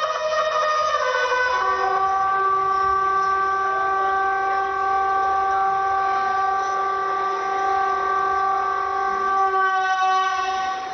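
Bugle call sounded as the flags are lowered: a short higher note, then one long held lower note that lasts about eight seconds and stops about a second before the end.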